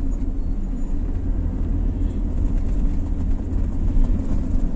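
Steady low rumble of a car's engine and tyres on the road, heard from inside the cabin while driving slowly along a city street.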